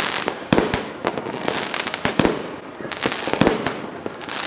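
Fireworks going off: a sharp bang roughly every second over a continuous crackle.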